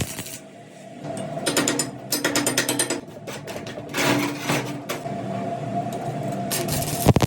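A metal mechanism clicking rapidly in several short bursts, like a ratchet being worked.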